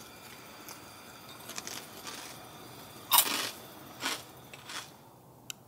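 Bites into crispy fried food: one loud crunch about three seconds in, then two softer crunches a second or so apart as it is chewed.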